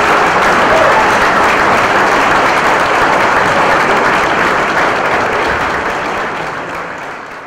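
Theatre audience applauding steadily after a song, fading away over the last couple of seconds.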